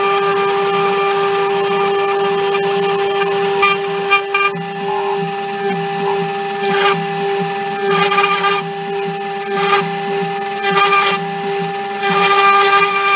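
CNC router spindle running with a steady whine while a small end mill carves a blue plastic block. Short rasping surges of cutting noise come at irregular intervals as the cutter bites in, and it is louder in the last second or so.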